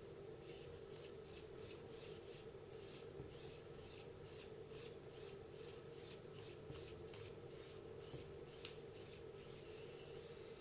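About twenty quick, even rubbing strokes, two to three a second, with a sharp click near the end of them. A steady hiss follows in the last second.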